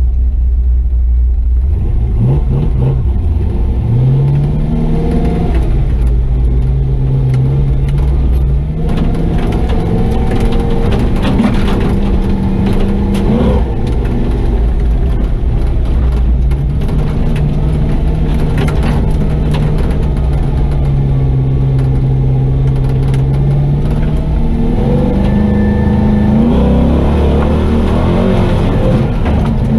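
Chevy truck's swapped-in 6.0 L LS V8 (LY6) running under load while driving. Its note climbs about four seconds in, holds fairly steady with a dip, then climbs again near the end, with scattered knocks and rattles in the middle.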